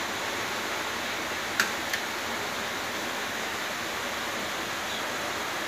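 Steady even hiss, with two short sharp clicks close together about a second and a half in.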